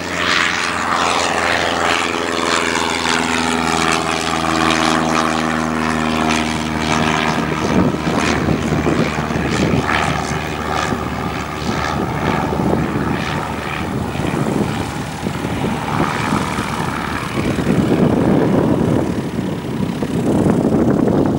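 Single-engine propeller light aircraft climbing out, its piston engine and propeller passing close by with the engine note dropping in pitch over the first several seconds, then a steady drone as it flies away.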